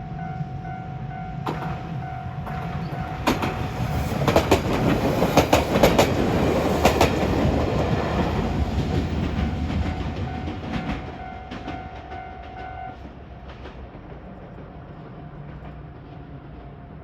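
A JR Kyushu 817 series electric train passes over a level crossing, its wheels clacking over the rail joints. It is loudest about five to seven seconds in and fades after about eleven seconds. A Japanese level-crossing alarm rings a steady tone and stops about thirteen seconds in.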